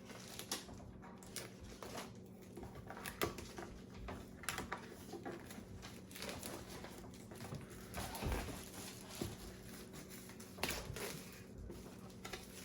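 Scattered light taps, knocks and rustles of cardboard packaging as a Pokémon Elite Trainer Box is opened and its contents handled, with a small cluster of knocks about eight seconds in. A steady low hum runs underneath.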